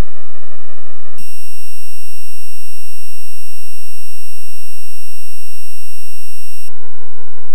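Electronic music track sped up to an absurd tempo and heavily amplified, so that it is no longer heard as a beat but as a loud, distorted, steady buzzing tone. The tone jumps abruptly to a brighter, harsher buzz about a second in, and shifts pitch again near the end.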